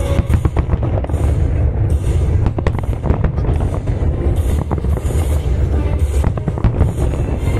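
Fireworks display: many sharp bangs and crackles in quick succession over a continuous low rumble.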